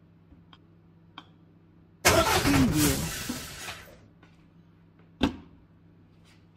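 A golf ball reaches the hard plastic ball-return unit at the end of a putting mat and clatters and rolls around in it for about two seconds, fading away. About three seconds later comes a single sharp click of a putter striking the next ball. A low steady hum sits underneath.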